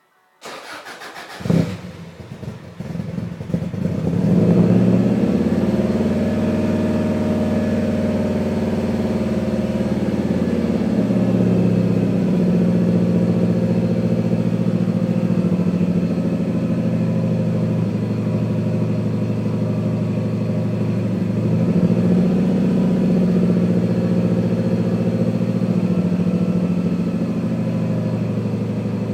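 1993 Subaru WRX's turbocharged 2.0 L EJ20 flat-four, through a custom 3-inch exhaust, cranking and firing about a second and a half in. Its note climbs over the next few seconds, then settles into a steady idle.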